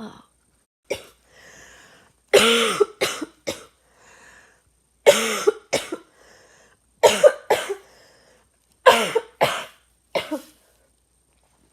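A girl coughing in fits: five bouts of two to four coughs, about two seconds apart, with short breaths in between.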